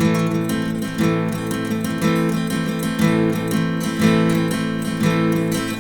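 Acoustic guitar strumming a slow chord pattern, about one stroke a second, as the instrumental intro to a song.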